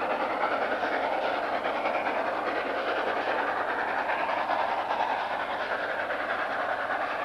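Narrow-gauge steam locomotive 99 1774 running with its train, a steady, even noise with no distinct exhaust beats.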